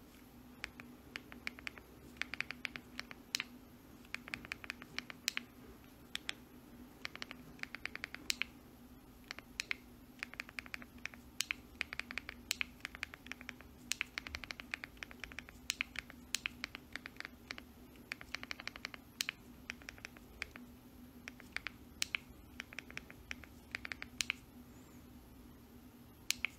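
Light, faint clicking taps in quick irregular clusters, the sound of typing, over a faint steady hum.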